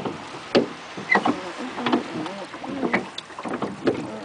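A small boat rocking on waves, with water slapping the hull and a few sharp knocks. Faint voices murmur underneath.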